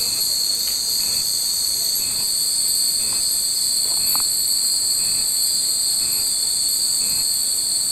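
A steady, high, unbroken cicada chorus, with faint tinkles of the hanging wind chimes now and then.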